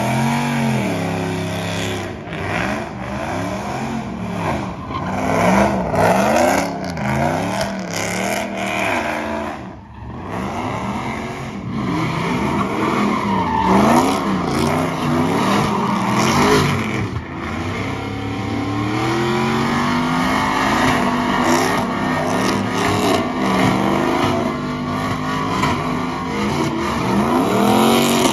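A pickup truck engine is revved hard and let fall again and again as the truck spins donuts, its pitch rising and dropping every second or two. Under it the rear tyres screech as they spin and smoke.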